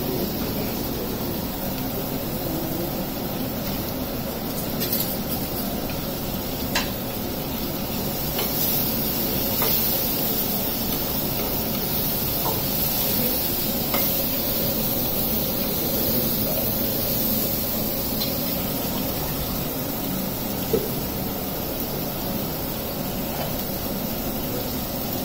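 Food frying with a steady sizzle in pans on a gas stove, with a few sharp clinks of a metal spoon against a kadai as vegetables are stirred.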